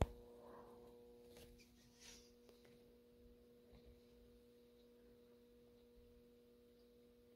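Near silence: a faint, steady electrical hum of two low tones from a washing machine standing still mid-cycle with its drum full of water. A few faint soft ticks come in the first couple of seconds.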